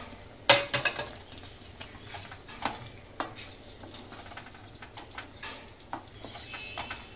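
Wooden spatula stirring raw chicken pieces into fried masala in a metal kadhai: wet scraping and scattered knocks against the pan over a light sizzle. A sharp clatter of several quick knocks about half a second in is the loudest sound.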